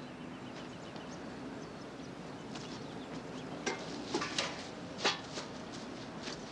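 Footsteps crunching over landfill debris: a few short, sharp crunches from about three and a half seconds in, over a steady outdoor hiss.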